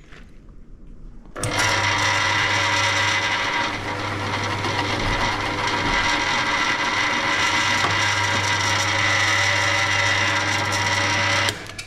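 Benchtop drill press motor and spindle switched on about a second and a half in, running steadily with a whine made of many fixed tones, and switched off just before the end. This is a cheap, worn machine whose spindle still has a lot of runout.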